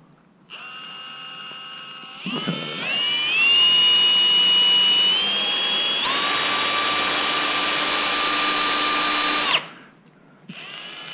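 Cordless drill on its low speed setting drilling a small safety-wire hole through a steel bolt held in a vise. The motor whine starts about half a second in, gets louder around two seconds in and steps up in pitch a few times, then stops suddenly near the end.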